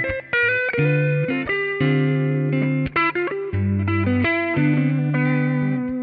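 Telecaster-style electric guitar on its Lollar Royal-T neck pickup, played through a Centaur-type overdrive pedal. It plays a riff of sustained chords and single notes, with short breaks between phrases.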